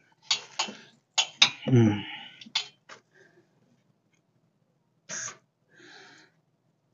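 Sharp clicks and clatter of a welder's ground clamp being handled and hooked up, with a short grunt about two seconds in. A brief hiss follows a little after five seconds, then a fainter one.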